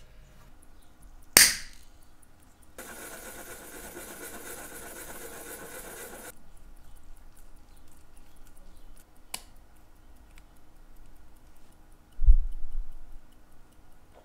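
Small watch parts being handled: a winding stem held in a pin vise and a crown being fitted onto it. There is a sharp click about a second in, then a few seconds of rubbing, another click, and a low thump near the end.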